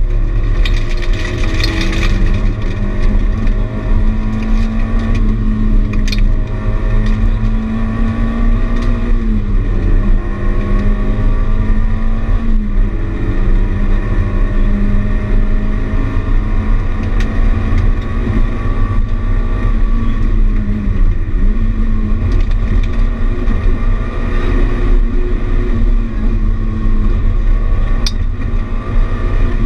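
Citroën AX Sport rally car's four-cylinder engine running hard, heard from inside the cabin over heavy road and tyre rumble. The revs hold mostly steady, dipping briefly a few times, and there are a couple of short sharp ticks.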